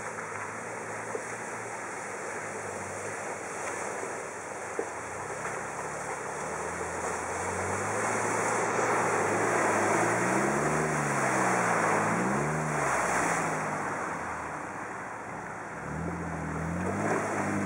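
Jeep Wrangler Rubicon's engine working through a deep mud- and water-filled trench, with the tyres churning and sloshing the muddy water. The engine revs rise and fall twice a little past halfway, then climb again near the end.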